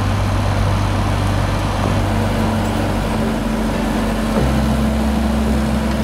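Grimme SE 150-60 two-row potato harvester, drawn by a Fendt Vario tractor, at work: a dense, steady mechanical clatter of the sieve webs carrying soil and potatoes, over a low engine drone.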